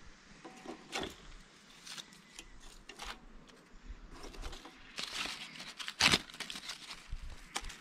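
Thin wooden kindling sticks knocking as they are pushed down into a rocket stove, a few separate clicks, then papery birch bark being torn apart by hand with crinkly rips about five seconds in.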